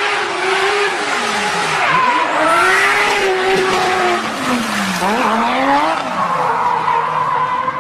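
Rally car at full speed passing close by, engine revving hard, its pitch falling and climbing again twice, over a loud rush of tyre and road noise.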